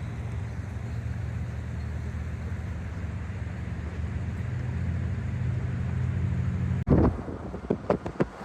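Steady low drone of a car on the move, engine and road noise heard from inside. About seven seconds in it cuts off abruptly, followed by a few sharp clicks or knocks.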